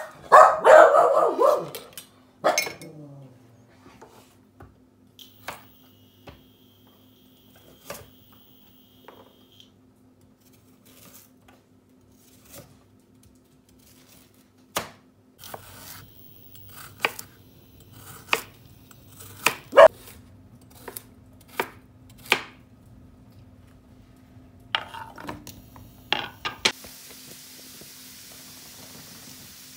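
Knife chopping carrots on a wooden cutting board: scattered single knocks, some sharper than others. A dog vocalises briefly at the start, and near the end the sound gives way to a steady hiss.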